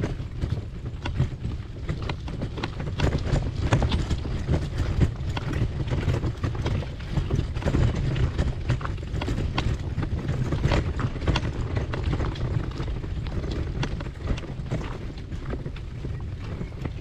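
Footsteps of walkers on a hiking trail: an irregular run of light steps and knocks over a steady low rumble.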